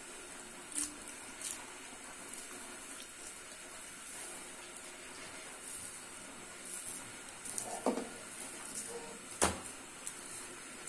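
Kitchen background: a low steady hiss with scattered faint ticks, a short clink about eight seconds in, and one sharp knock about nine and a half seconds in.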